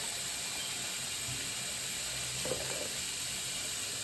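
Tap water running steadily from a faucet into a sink and over a hand: an even, continuous hiss.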